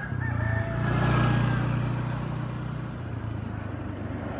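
A motor vehicle passing on the road, its engine hum swelling to a peak about a second in and then fading away.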